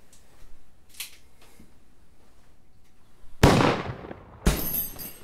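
A couple of faint clicks, then a loud handgun shot about three and a half seconds in, ringing off into a fading tail, and a second sharp bang about a second later.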